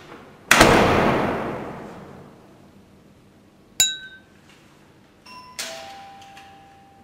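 A door slams shut with a loud bang that fades away over a second or so. Later comes a sharp metallic click with a ringing tone, then a two-note doorbell chime, higher then lower, the lower note held.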